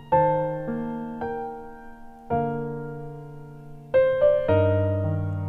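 Background piano music: slow chords, each struck and left to fade, with a few quicker notes near the end.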